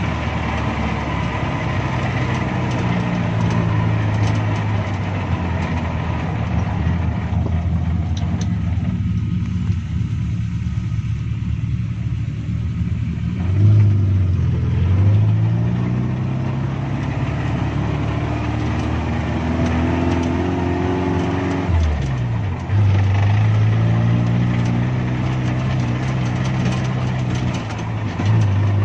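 Suzuki Jimny's engine pulling steadily in low gear while crawling, its revs rising in two pushes, about halfway through and again a little later.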